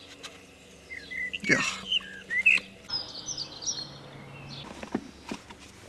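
Small birds chirping in short, quick notes that bend up and down, with a brief rush of noise about a second and a half in and a couple of soft knocks near the end.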